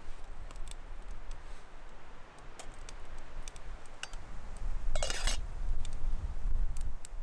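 Wood fire crackling in a Solo Stove Lite wood-burning stove: scattered sharp pops and ticks over a low rumble, with a louder, denser crackling burst about five seconds in.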